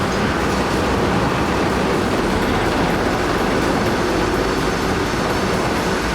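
Heavy diesel machinery running steadily: a dense engine and mechanical rumble with no breaks.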